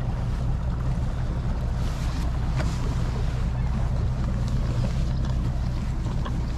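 Bass boat's outboard motor running steadily with an even low hum.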